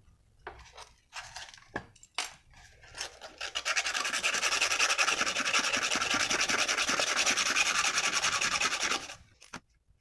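Emery paper rubbed back and forth over the carbon-blackened contact point of a fridge relay-overload unit, scouring off the burnt deposit. A few scattered scrapes come first, then about five seconds of rapid, even rubbing strokes that stop suddenly near the end.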